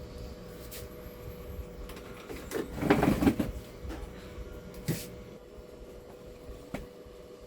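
Handling noises on a repair bench: scattered sharp clicks and a short louder clatter about three seconds in, over a faint steady hum.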